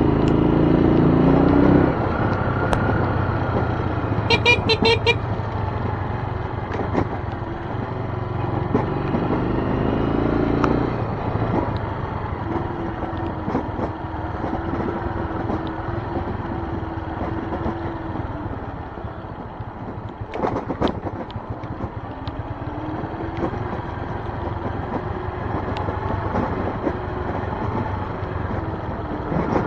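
Keeway Brusco 125 motorcycle engine running on the move, its pitch rising and falling with the throttle. A short horn toot sounds about four seconds in.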